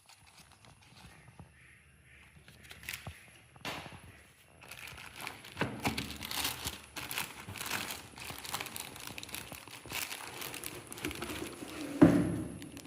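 Packaging crinkling and rustling as a new trolley suitcase is unwrapped, starting about five seconds in, with a single thump near the end.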